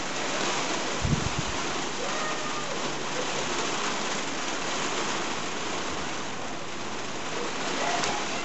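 Steady hiss of rain falling on a roof, with a single low thump about a second in.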